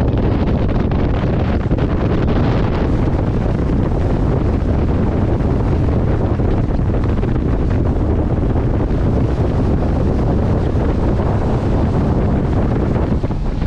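Strong wind buffeting the microphone: a loud, steady rumble with hiss above it that does not let up.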